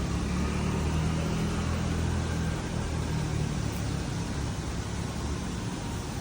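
Street traffic heard from outside a window: a steady wash of road noise with the low rumble of a passing vehicle, heaviest in the first few seconds and easing off toward the end.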